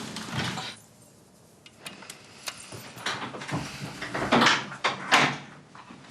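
A door being opened or shut: a few clicks and knocks, then two louder sliding strokes about four and a half and five seconds in.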